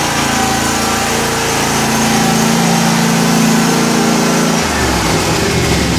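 Wright Stander B stand-on mower's engine running steadily as the mower is driven up close. Its low note changes about four and a half seconds in.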